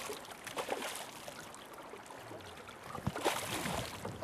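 Hooked salmon thrashing and splashing at the surface beside the boat, over the rush of river current, with splashing bursts about half a second in and again around three seconds in.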